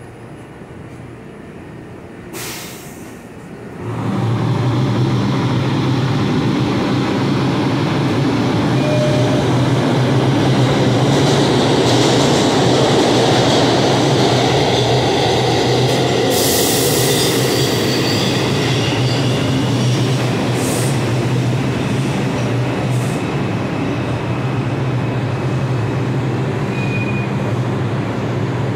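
R142 subway train at the platform: a brief hiss about two seconds in, then from about four seconds a loud steady hum with a few short high squeals.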